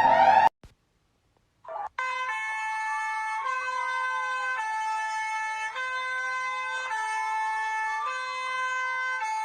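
Emergency-alert-style electronic alarm: a loud sweeping tone cuts off half a second in, and after a second of silence a new alarm starts, with a chord of steady electronic tones that steps in pitch about once a second over a slower tone gliding up and down like a siren.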